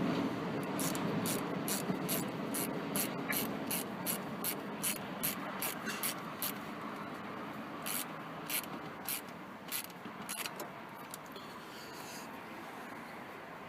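Socket ratchet clicking in quick, regular strokes, about three clicks a second, as a 7 mm worm-drive hose clamp on a radiator hose is tightened. The clicking turns uneven and stops a couple of seconds before the end.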